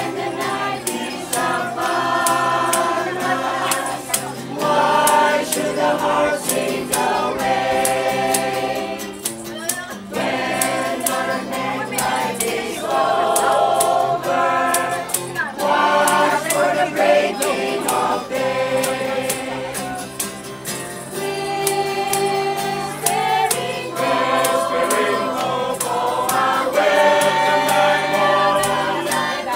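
A group of carolers, men, women and children, singing a Christmas song together in chorus, accompanied by a strummed acoustic guitar.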